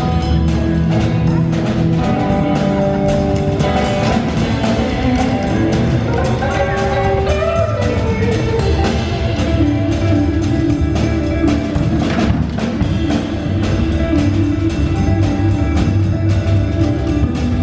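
Live band playing an instrumental passage: a drum kit keeping a steady beat under electric guitar and bass, with a bent guitar note about halfway through.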